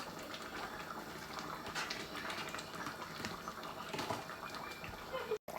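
Chicken curry sauce simmering in the pot, bubbling with a steady run of small pops and ticks. The sound cuts out for a moment near the end.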